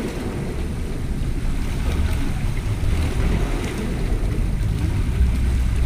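Wind rumbling on the microphone over sea water washing and splashing against rocks.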